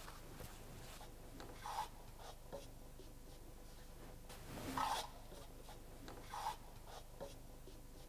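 A few faint, short scrapes and rubs as concrete debris is cleared off the compression testing machine after a cube has been crushed. The loudest stroke comes about five seconds in.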